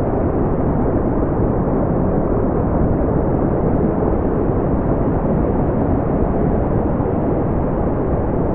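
Brown noise: a steady, deep rushing hiss with most of its energy in the low end, unchanging throughout.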